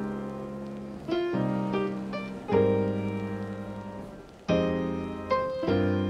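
Background piano music: slow chords, a new one struck every second or two, each ringing on and fading.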